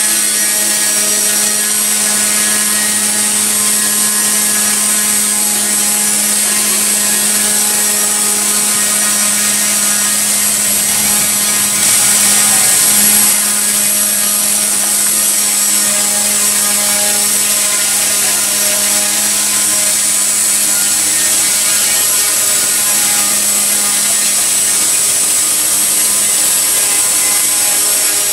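Align T-REX 150X micro electric RC helicopter hovering: a steady high-pitched whine of its electric motors with the hum of the spinning rotors, swelling briefly about twelve seconds in.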